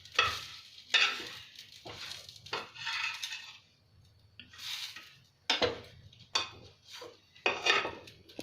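A metal utensil knocking and scraping against a frying pan several times while a bread sandwich toasts in ghee.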